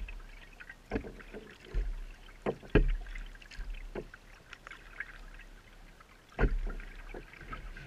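Paddling a Pelican Quest 100 kayak: paddle strokes with water dripping and splashing, broken by a few sharp knocks. The loudest knocks come nearly three seconds in and again about six and a half seconds in.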